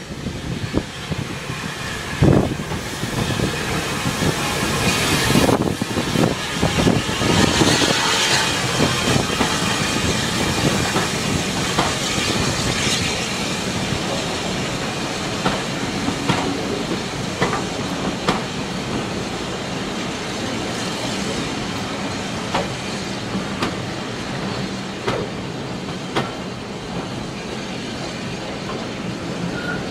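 Bagnall 0-6-0 saddle-tank steam locomotive hauling a train of coaches slowly past at close range, with a loud hiss of steam for the first several seconds, then the coaches rumbling by with their wheels clicking over the rail joints at a steady spacing.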